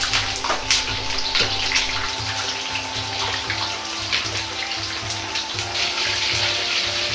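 Coated chicken pieces deep-frying in oil heated to about 170 °C in a carbon-steel wok: a steady, crackling sizzle as the batter sets, stirred with a metal ladle.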